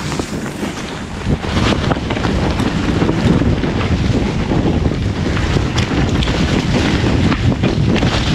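Wind rushing over the microphone of a camera riding down a mountain-bike trail, with the bike's tyres and frame knocking over the bumps. It gets louder about a second in.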